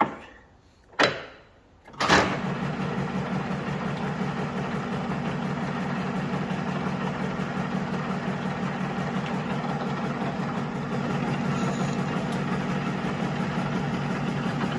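Metal lathe started up about two seconds in, its spindle and chuck then running steadily with a low hum. Two short knocks come just before it starts.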